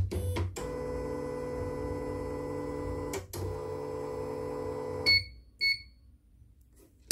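CNY portable embroidery machine running with a steady mechanical hum that breaks briefly about three seconds in and stops about five seconds in. Then come two short electronic beeps from its control-panel buttons.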